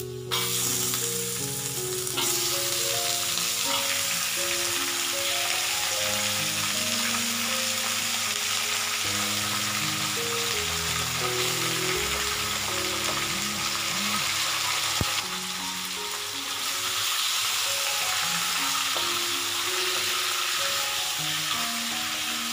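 Raw chicken pieces frying in hot oil with potatoes and lemongrass in a metal pan: a loud, steady sizzle that starts suddenly just after the chicken goes in and dips briefly past the middle. Soft background music plays under it.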